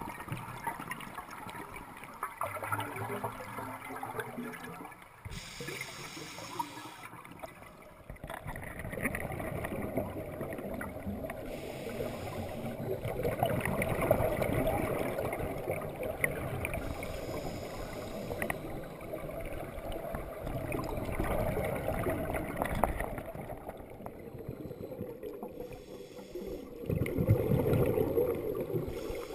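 Muffled underwater gurgling and rushing of scuba air bubbles and moving water, recorded through a GoPro's waterproof housing; it swells and fades several times and is loudest near the end.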